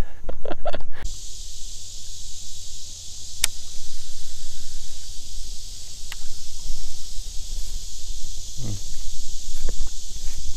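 Steady, high-pitched insect drone that starts suddenly about a second in, over a low rumble, with two sharp clicks a few seconds apart.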